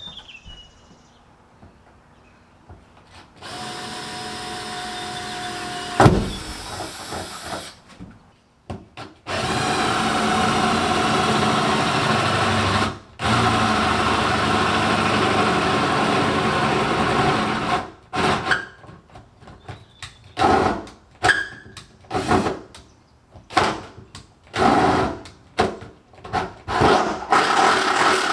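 Cordless drill boring holes through the metal floor of a pickup truck bed. A short run comes first, then a long steady run of about eight seconds with one brief break, then a string of short trigger bursts near the end.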